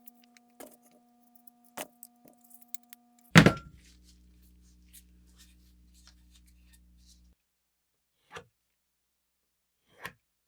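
Scattered light taps and clicks of handling work, with one loud, sharp knock about three and a half seconds in and two softer knocks near the end.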